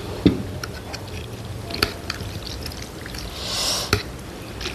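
Metal spoon and chopsticks clinking and scraping against ceramic bowls as wet chutney is spooned into a bowl of noodle soup and mixed. There are a few sharp clicks, the loudest just after the start, and a soft hiss shortly before the end.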